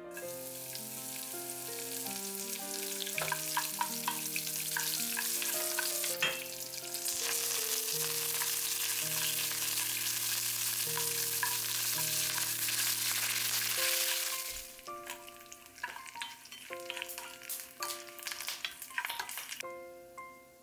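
Hot oil sizzling hard in a stainless steel pan as a tempering of chana dal, urad dal, green chillies and curry leaves fries, stirred with a wooden spatula. The sizzle dips briefly about six seconds in and swells again, then dies down at about fourteen seconds, leaving light taps and scrapes of the spatula.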